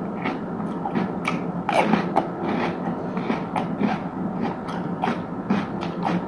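Close-miked chewing and biting of crunchy food, a steady run of crisp crunches about three a second.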